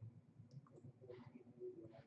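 Near silence: a faint low hum with a few soft scattered clicks.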